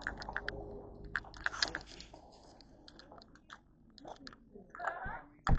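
Footsteps crunching on a dirt trail in an irregular series of short crunches, with one sharp, louder knock near the end.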